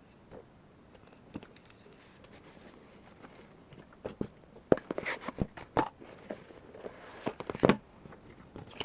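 Parts of an MWS gas-blowback airsoft AR15 being handled and fitted together, clicking and knocking. There are a few faint clicks at first, then a busier run of sharp knocks from about four seconds in.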